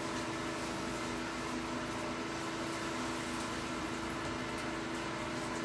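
Steady hum and hiss of a running machine, such as a kitchen fan or appliance, with an unchanging low drone throughout.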